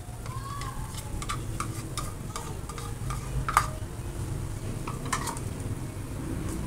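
Pork pieces and potato strips sizzling in a frying pan as onion rings are tipped in and stirred with a spoon, with a run of light clicks and scrapes against the pan, the loudest about halfway through.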